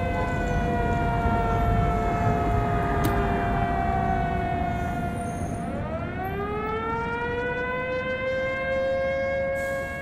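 Civil air-defence sirens wailing, more than one at once, sounded as the three-minute mourning alert: one holds a steady pitch while another slowly sinks, then about six seconds in a siren glides back up in pitch, over a low rumble.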